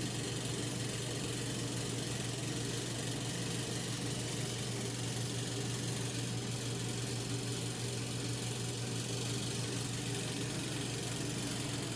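Compact twin-tub portable washing machine running: a steady motor hum with a strong low drone, unchanging throughout.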